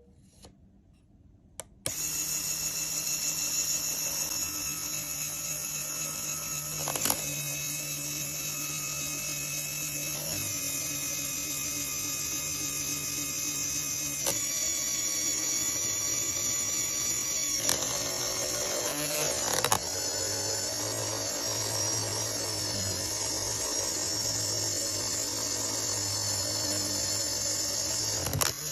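LEGO Technic gears grinding against each other, driven steadily by a small motor: a continuous high whine with a few sharp clicks, starting about two seconds in and shifting in pitch a couple of times.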